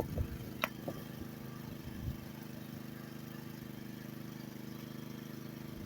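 A pressure washer's horizontal-shaft Honda engine running steadily, with a single brief click a little over half a second in.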